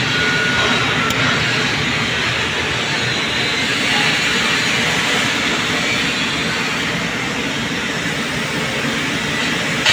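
Steady, loud whooshing drone of air-conditioner outdoor units running, their fans and compressors going continuously.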